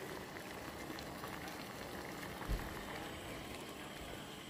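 A pot of liquid bubbling steadily at a boil, with a single dull knock about two and a half seconds in.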